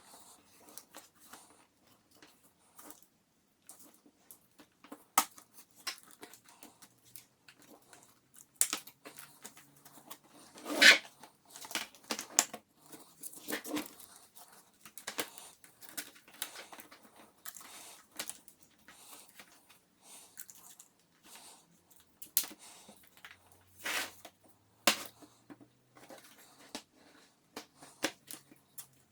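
A Lenovo Legion Y520 laptop keyboard being pried out of its plastic upper case by hand: irregular clicks, scrapes and snaps of plastic. The loudest snap comes about eleven seconds in, with two more sharp snaps near the end.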